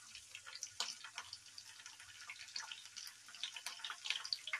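Green chilli pieces frying in hot oil with mustard and cumin seeds, the tempering for a curry: a quick, irregular crackle of small pops and spatters.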